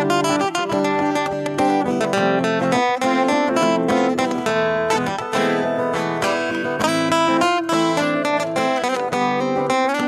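Background music: acoustic guitar plucked and strummed.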